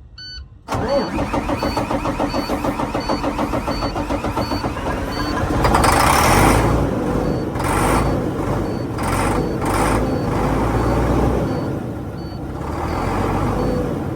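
Navistar MaxxForce 13 diesel being cranked by its starter, turning over in an even pulsing rhythm from about a second in, then growing louder with a few hissy bursts, but never catching: it will not start even with starting fluid. A faint warning beep repeats about twice a second.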